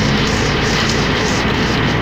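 Local bus driving along: its engine running under a steady, loud rush of wind and road noise coming in at the open window.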